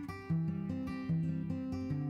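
Background music played on guitar, with notes and chords struck and left to ring.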